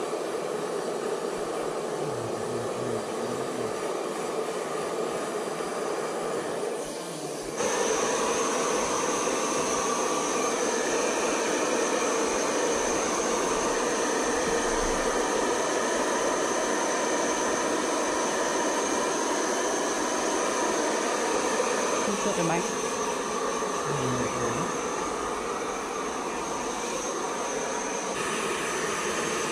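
Handheld hair dryer blowing steadily on a golden retriever's coat, a rushing of air with a high whine. It dips briefly about seven seconds in, then runs louder.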